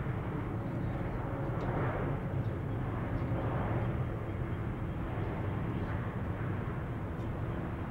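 Airbus A330 jet airliner's engines rumbling steadily as it rolls along the runway, heard from beside the runway.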